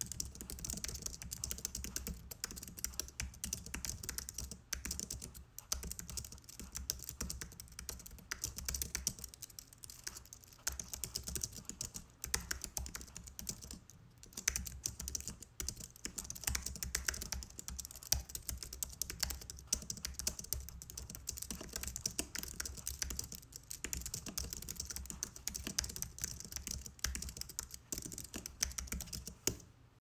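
Continuous typing on an Apple keyboard: rapid, irregular key clicks with a short pause about fourteen seconds in.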